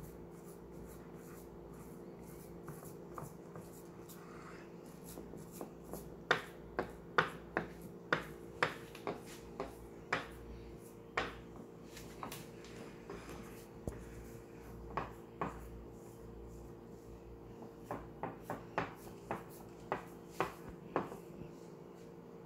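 A spatula tapping and scraping against a glass baking dish as dough is pressed flat into it, with sharp taps coming about one or two a second from about six seconds in. A steady low hum runs underneath.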